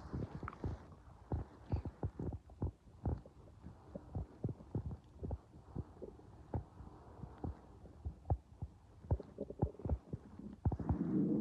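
A growling stomach heard up close: a run of soft, irregular clicks and thumps, then a gurgling rumble that falls in pitch near the end.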